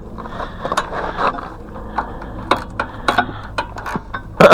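Irregular metallic clicks and taps of a 10 mm wrench working on a fitting at a small gasoline engine's carburettor as it is tightened, over a steady low hum.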